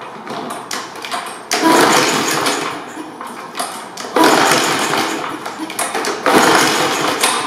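Briggs & Stratton mower engine being pull-started on its recoil cord three times. Each pull is a sudden burst of cranking noise that dies away within about a second, and the engine does not catch and run.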